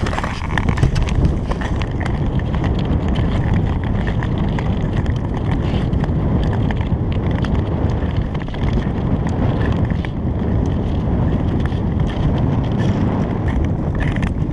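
Long-distance skates scraping and gliding over snow-dusted natural lake ice, with wind buffeting the microphone and occasional sharp clicks.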